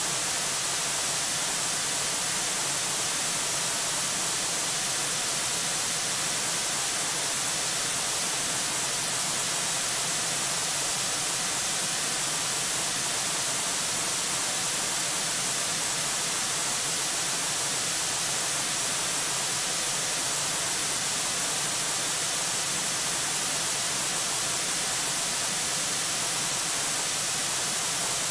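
Steady hiss of static on the audio feed, unchanging, with no other sound standing out.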